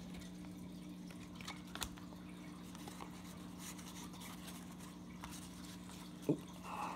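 Baseball cards being handled and flipped through: faint slides and clicks of card stock, with a sharper tap about six seconds in, over a steady low hum.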